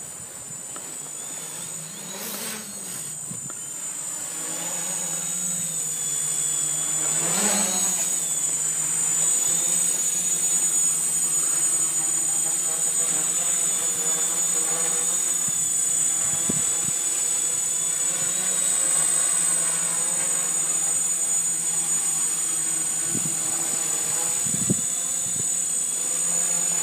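Changeling multicopter's electric motors and propellers buzzing steadily in flight, with a high steady whine on top. It grows louder over the first several seconds as it comes closer, then holds.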